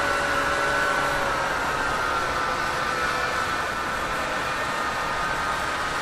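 Tractor engine running steadily under load while pulling a mounted plough through the soil, with a steady high whine over the engine note.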